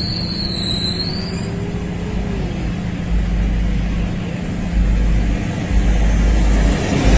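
Steady road-traffic noise with a low rumble that comes and goes, growing louder near the end as a vehicle approaches.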